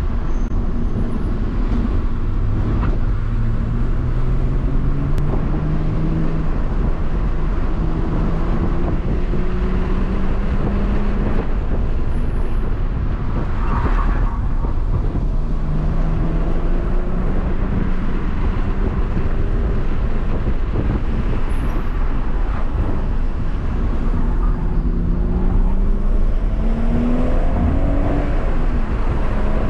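BMW M140i's turbocharged 3.0-litre straight-six heard from inside the cabin under hard driving. The engine note climbs in pitch several times and falls away between the pulls, over a steady rumble of road and tyre noise.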